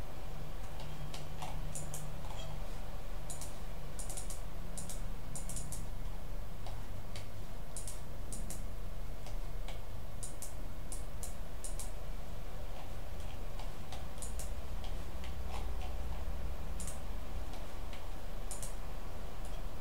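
Irregular clicks of a computer mouse, some in quick pairs or clusters, over a steady low hum.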